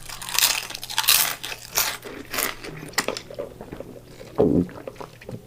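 Close-miked eating sounds: crisp crunching bites and chewing, several loud crunches in the first two and a half seconds, then softer chewing.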